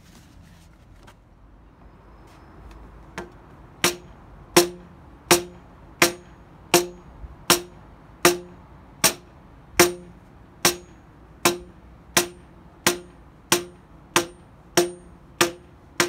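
Steady hammer blows on the Monarch lathe's steel spindle, driving it out of the headstock. Starting about three seconds in, there are about one and a half blows a second, each with a short metallic ring.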